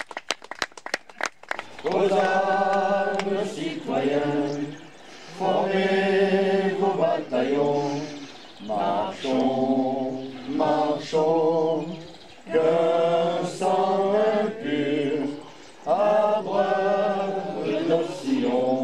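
A choir singing a slow song a cappella, in held phrases with short breaths between them. Applause dies away in the first moment.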